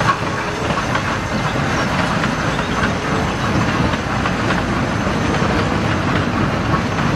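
East Broad Top steam locomotive hauling freight cars across a steel girder bridge: the steady, even noise of the train running.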